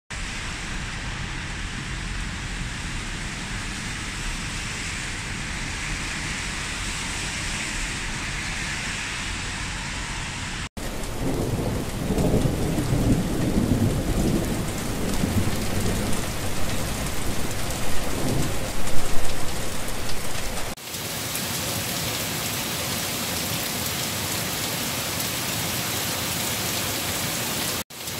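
Rain in three recordings joined by abrupt cuts. First comes steady rain on a wet street. About eleven seconds in it switches to heavier rain with deep thunder rumbling, loudest a little before the next cut. About two-thirds of the way through it changes to a steady hiss of rain on trees.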